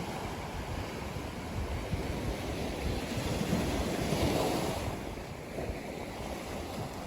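Ocean surf washing onto a beach, one wave building and breaking to its loudest about three to five seconds in before subsiding, with wind rumbling on the microphone.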